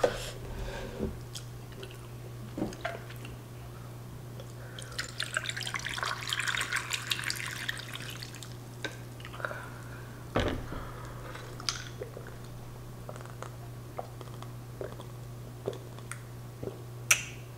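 Water poured from a plastic pitcher into a tall glass packed with ice, splashing over the ice for about three and a half seconds. A sharp knock follows, then scattered small clicks of ice in the glass.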